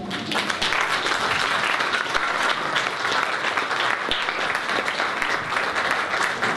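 An audience applauding steadily, many hands clapping together.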